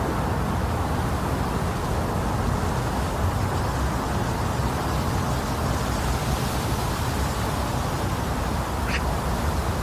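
Steady womb-simulating noise for lulling a baby to sleep: an even rushing noise weighted toward a deep low rumble, with no rhythm or change.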